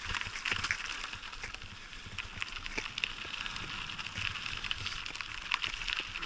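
Bicycle tyres rolling over dry fallen leaves on grass: a steady crackling rustle with many small snaps.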